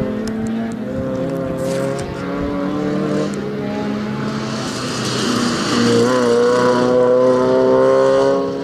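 Spec Miata's four-cylinder engine running at high revs under throttle while the car drifts, its pitch holding with brief dips and rises. A hissing tyre squeal builds about halfway through, and the sound is loudest near the end.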